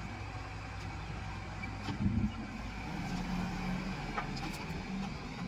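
Diesel engine of an Escorts Digmax backhoe loader running steadily, with a short louder surge about two seconds in.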